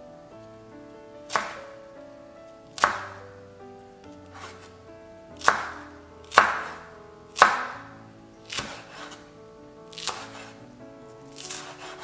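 A chef's knife slicing diagonally through the white of a green onion onto a wooden cutting board: about nine slow, separate cuts, each a short crisp stroke, the loudest in the middle. Soft background music plays throughout.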